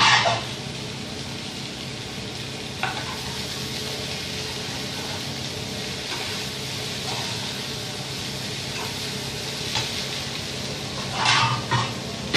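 Diced vegetables, including bell peppers and mushrooms, sizzling steadily in a frying pan while a spatula stirs them. The spatula scrapes and knocks against the pan, loudest right at the start and in a few quick strokes near the end.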